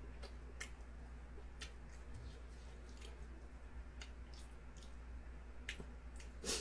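Quiet eating sounds: soft scattered clicks of chopsticks and mouth as food is picked up and chewed, over a steady low hum, with a slightly louder short sound near the end.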